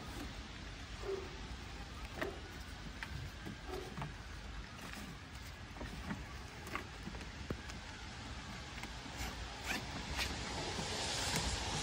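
Scattered light rustles and clicks of the fabric inflation tube and its strap being handled at a switched-off bouncy castle blower, over a low rumble of wind on the microphone that swells near the end.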